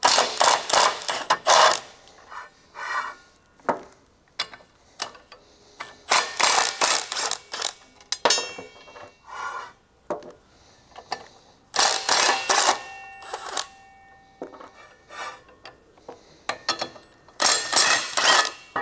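Half-inch cordless impact wrench with a 9/16 socket hammering out the bolts that hold a drill opener disc, in four loud bursts of a second or two each. Short metallic clinks and knocks of handling come between the bursts.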